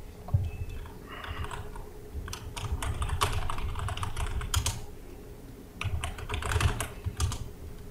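Typing on a computer keyboard, with a longer run of keystrokes from about two to five seconds in and a shorter run about six to seven seconds in.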